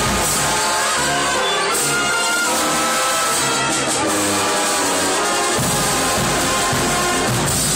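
High school marching band playing loud brass chords, with the tuba bass getting heavier about two thirds of the way in.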